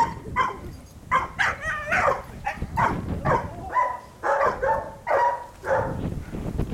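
Dog barking over and over, about two barks a second, while being worked in protection bite training.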